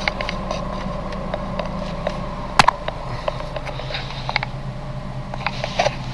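Steady hum of a car running, heard inside the cabin, with scattered sharp handling clicks and taps. The loudest click comes about two and a half seconds in, and a few more come near the end.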